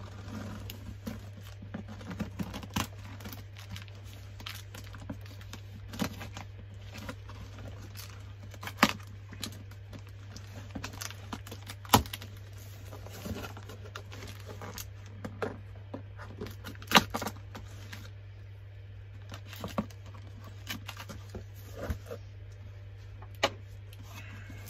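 A cardboard box being opened with scissors: packing tape slit and torn, and cardboard flaps pulled back and rustling, with scattered sharp clicks and knocks from the scissors and box.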